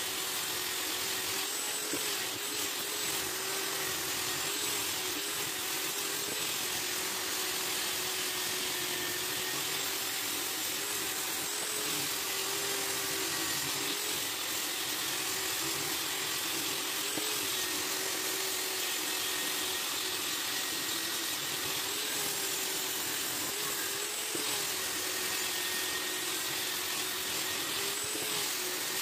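Electric rotary polisher fitted with a sanding disc, its motor running steadily while the disc sands a wooden board, with a constant hiss and a motor tone that wavers slightly as the pressure on the wood changes.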